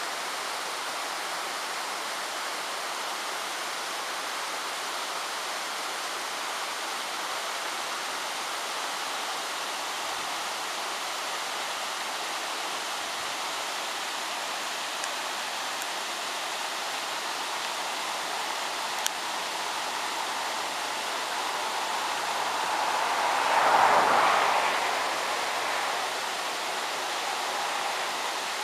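Waterfall and rocky cascading creek rushing steadily, with one louder swell of rushing water for a few seconds about four-fifths of the way through.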